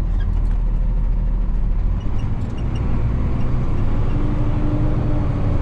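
Box truck's engine running in low gear, a steady low rumble while it descends a hill on engine braking.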